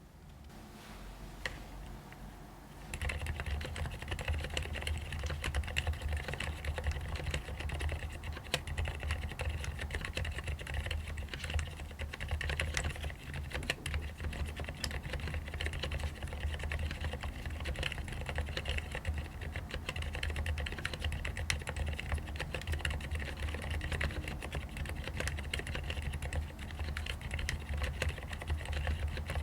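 Continuous fast typing on a keyboard with fully lubed Cherry MX Silent Red switches. The keystrokes are soft, mostly the sound of fingers striking the keycaps rather than the switches. The typing starts in earnest about three seconds in.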